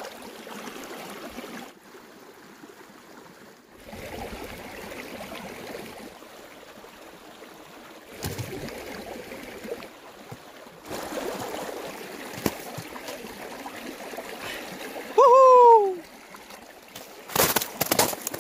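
A shallow mountain stream trickling and gurgling over rocks between ice shelves. About 15 seconds in, a single loud, short cry falls in pitch, and near the end come several sharp knocks.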